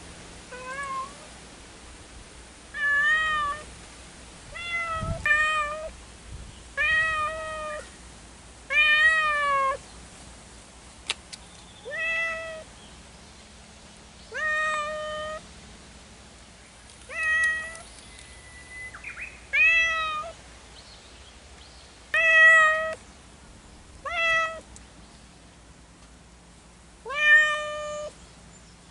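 Cats meowing in long, repeated calls, about one every two seconds, a dozen or so in all.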